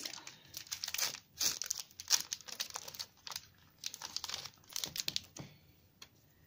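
Foil Pokémon card booster pack wrapper crinkling and tearing as it is opened and the cards are pulled out. The crackling stops shortly before the end.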